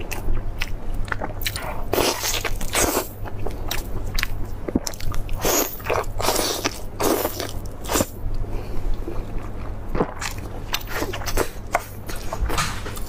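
Close-miked eating: a woman biting meat off big beef ribs and chewing it, in irregular short mouth and chewing sounds, over a steady low hum.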